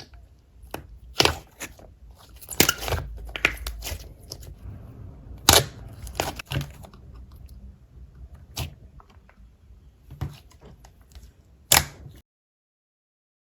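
Slime being squished and worked by hand, giving irregular crackling with about six sharp, loud pops spread through, then cutting off abruptly near the end.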